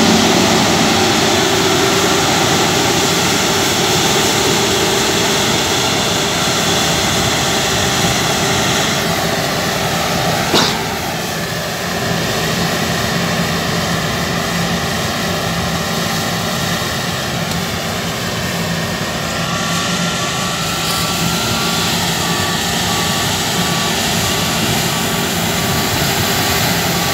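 New Holland CR9.90 combine harvester running under load while harvesting wheat, a steady dense machine noise of engine and threshing. There is one sharp knock about ten seconds in, and a faint pulsing tone in the last third.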